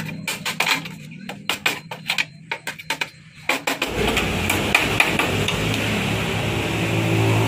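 Quick, irregular metal taps and knocks as a hand tool works at the rusted pressed-steel frame of a Honda EX5. About four seconds in the tapping stops and a steady hum with a hiss takes over.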